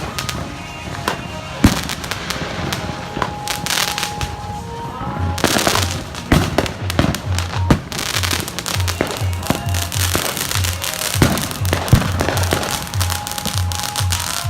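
Consumer fireworks going off close by: repeated sharp bangs and crackling bursts. From about five seconds in, music with a steady thumping bass beat plays under them.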